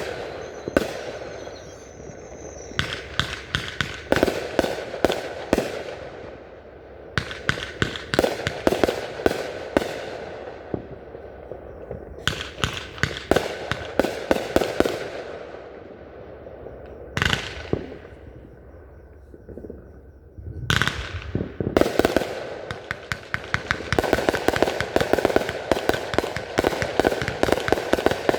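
Fireworks display: volleys of rapid crackling reports in clusters lasting a few seconds each. Two single sharper bangs come about 17 and 21 seconds in, then a long dense run of crackling near the end.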